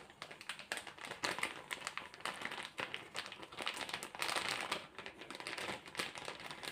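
A hand mixing chicken pieces in a wet spice marinade with corn flour in a stainless steel bowl: a continuous run of small wet clicks and rustles, busiest from about four seconds in.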